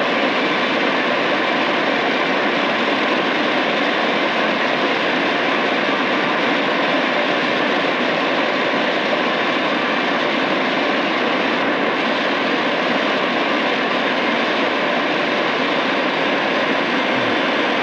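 Shortwave static from a Tecsun PL-880 receiver's speaker: a steady, even hiss while the radio is tuned up through the 11–12 MHz shortwave band and no station comes through.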